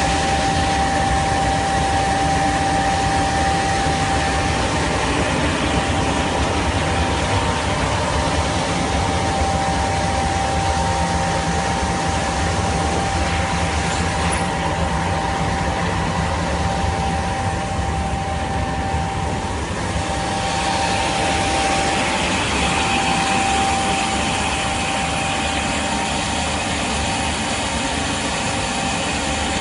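Metral 1M horizontal glass washing machine running: a steady mechanical noise with a constant high-pitched whine. The hiss thins for a few seconds past the middle, then comes back.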